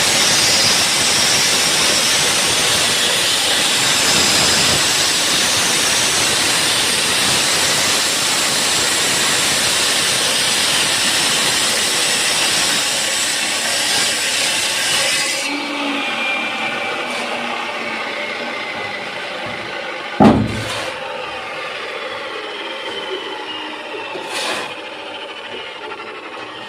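Concrete-cutting saw grinding through concrete with a loud, steady rushing noise. About 15 s in the cut stops and the blade's whine slowly falls in pitch as it winds down. A single loud thud comes about 20 s in.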